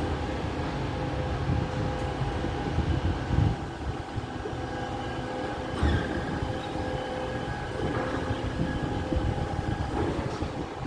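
Garbage truck running with a steady whine over low engine rumble, and a few heavy clunks: at the start, after about three and a half seconds, and about six seconds in.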